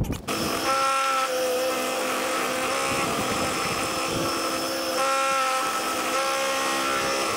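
Bench belt sander running while an end-grain checkerboard hardwood block is pressed onto the moving belt. The motor and belt make a steady noise, with a whine that comes and goes several times as the block bears on the abrasive.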